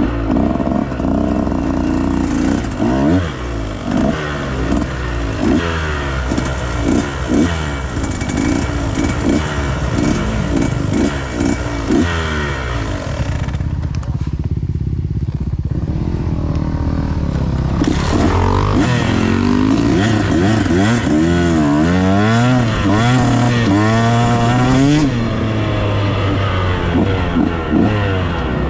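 Dirt bike engine revving up and down over and over as it is ridden, the pitch rising and dropping with the throttle and gear changes. It eases off briefly about halfway, then comes back with a run of quick rising-and-falling revs.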